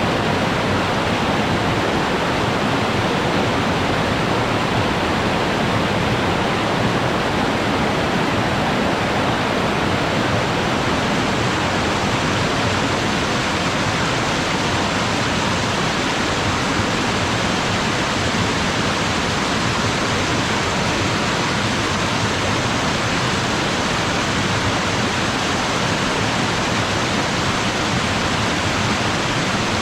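Waterfall splashing down into a mountain stream: a loud, steady rush of falling water that holds even throughout.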